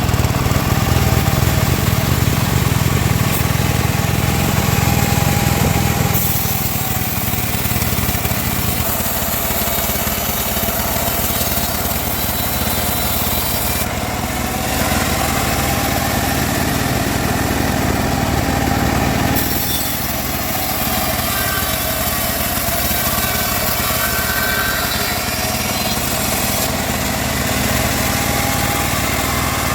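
Band saw running and cutting timber, a continuous mechanical drone with a pitch that wavers and dips as the blade works through the wood. The low rumble drops away about six seconds in, and the sound shifts again a couple of times later.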